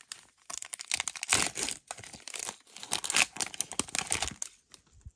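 Foil Pokémon booster pack wrapper crinkling and tearing open by hand, a run of irregular crackles that fades out near the end.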